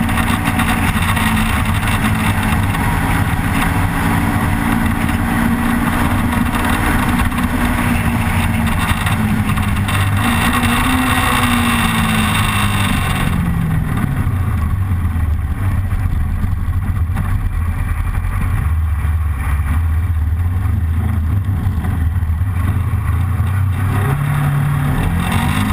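Motorcycle engine heard from the bike with heavy wind noise while cruising. Around 11 to 13 seconds in it slows and the engine note falls, and the wind noise drops away. The engine then runs at low revs and rises again near the end as it pulls away.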